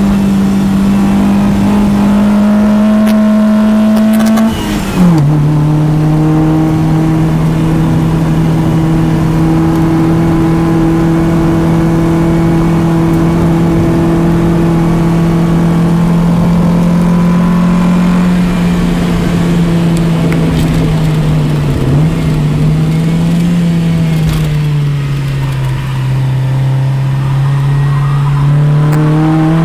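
Honda Civic's naturally aspirated, low-compression D16 SOHC four-cylinder engine heard from inside the car at track pace. Revs climb, then a gear change about five seconds in drops the pitch sharply. A long steady drone follows, which sags lower near the end before the revs rise again.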